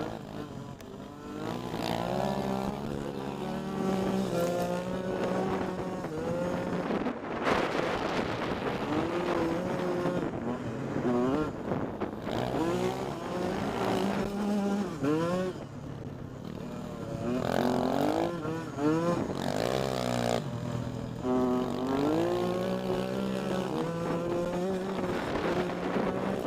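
125cc dirt bike engine revving hard and shifting up through the gears, its pitch rising and dropping back again and again, with wind rushing over the microphone.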